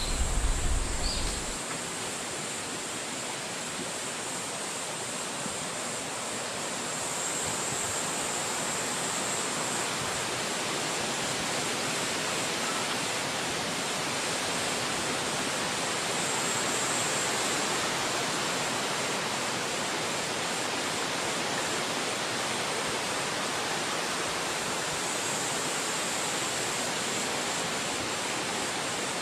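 Steady rushing of wind through forest trees, an even hiss with no breaks. In the first second and a half a low rumble dies away and a short high chirp is heard.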